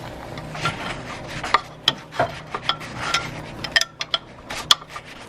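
Irregular metal clinks, knocks and scraping as a harmonic balancer is worked off the crankshaft, pried from behind with one tool and jiggled with another until it comes loose.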